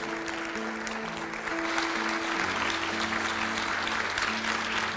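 Live church band playing soft held chords while the congregation applauds. The applause swells about a second and a half in, and low bass notes join about a second later.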